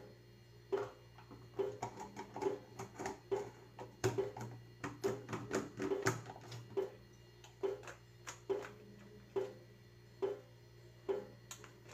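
Small hand-pressed plastic garlic chopper being pushed down again and again on peeled garlic cloves: a run of sharp plastic clicks and clacks, about two a second.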